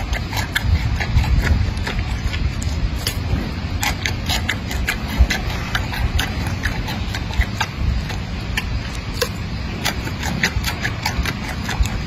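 Giant panda chewing a carrot: irregular crisp crunching clicks, over a low steady rumble.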